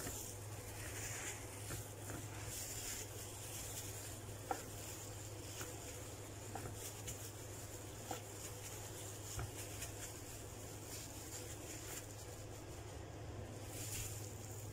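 Faint soft patting and rustling of chicken pieces being pressed and turned by hand in flour on a plate, with a few light taps, over a steady low hum.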